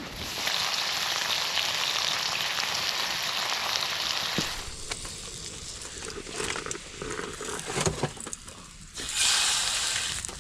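Bacon sizzling in a frying pan, a steady high hiss that dies down for a few seconds of scattered clicks and knocks, then comes back loud near the end.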